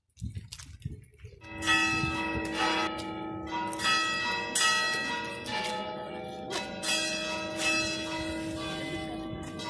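Church bells begin ringing about a second and a half in, struck again roughly once a second, each stroke's tones hanging on and overlapping the next.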